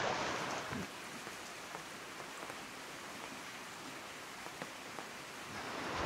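Faint, steady hiss of background noise with a few light ticks scattered through it.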